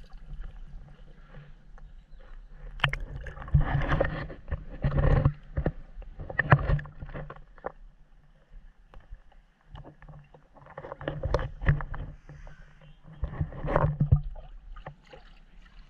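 Pool water splashing and lapping against a camera held at the surface, in irregular bursts with sharp little knocks, the microphone dipping in and out of the water. It goes quieter for a few seconds in the middle.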